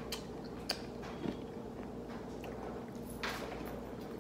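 Quiet eating sounds: faint chewing with a few small clicks of food and utensils, and a soft rustle about three seconds in, over a faint steady hum.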